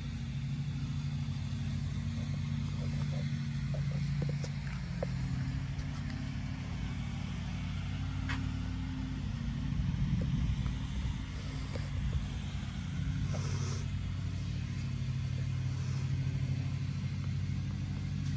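A steady, low mechanical hum like an engine running at idle, with a few faint clicks.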